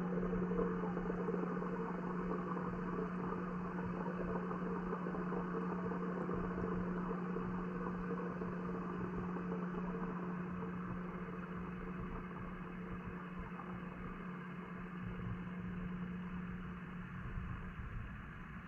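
Steady low mechanical hum over a muffled wash of water noise, heard underwater in a fish pond, growing slightly quieter toward the end.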